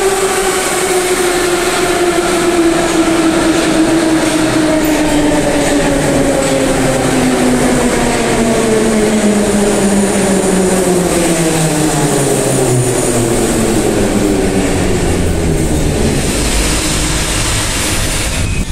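Moscow metro train braking into a station platform: the whine of its drive slides steadily down in pitch as it slows, fades out a few seconds before the end, and leaves a low rumble as it draws to a stop.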